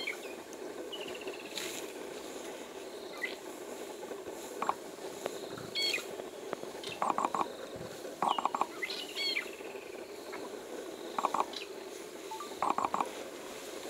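Bush ambience: birds calling with short, high chirps and several quick runs of three or four pulsed notes, over a steady background noise. A few brief rustles come from elephants moving through the grass close by.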